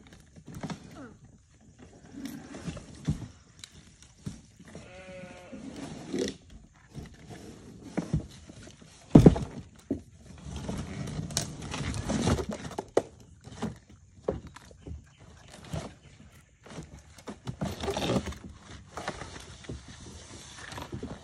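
Cardboard rustling, scraping and knocking as a large bike box is torn open and a packaged children's bicycle is hauled out, with a loud thump about nine seconds in. A short wavering cry sounds about five seconds in.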